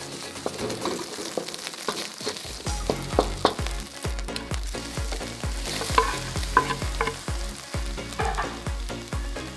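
Egg frying and sizzling in a metal wok while a wooden spatula stirs it, scraping and tapping sharply against the pan. A steady low beat runs underneath from about two and a half seconds in.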